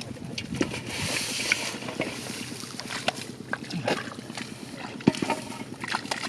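Splashing and sloshing in shallow muddy water, full of short wet smacks and clicks.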